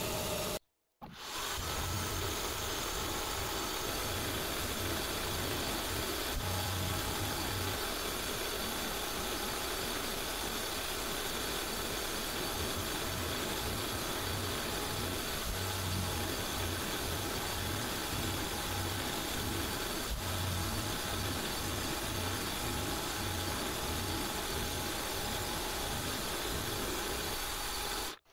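SIEG X3 CNC mill spindle running at about 2700 rpm while an end mill cuts a round pocket into a metal block: a steady machining noise. There is a short break about a second in.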